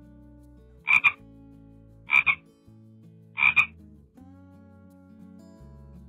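A frog croaking three times at an even pace of about one croak every second and a quarter, each croak a quick double pulse, over soft background music.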